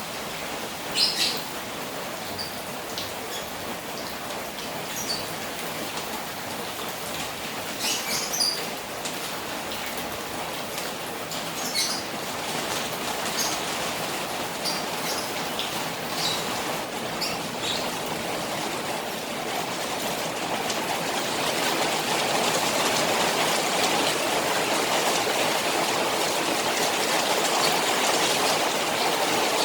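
Rain falling steadily on a koi pond, with a few short, high-pitched sounds over it in the first half. The rain and running water grow louder about two-thirds of the way through.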